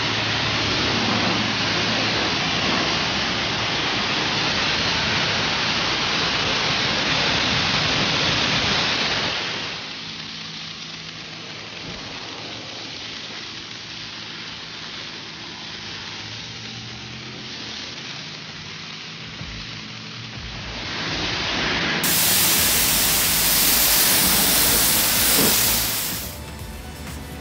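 High-pressure car-wash wand spraying water against a car's body panels and wheel, a loud steady hiss. It drops to a quieter spray about a third of the way in, then comes back loud near the end.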